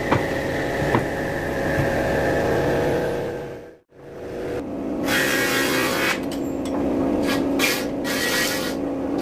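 Electric table saw running steadily, with a few light knocks as timber pieces are handled on its table; the sound fades out about four seconds in. A second woodworking machine then comes up running with a steady hum, broken by several short noisy bursts as a board is fed across it.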